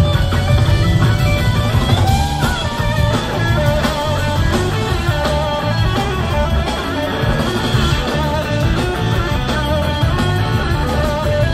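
A live blues-rock band plays an instrumental jam. An electric slide guitar plays a lead line, its notes gliding in pitch, over bass, keyboards and two drum kits.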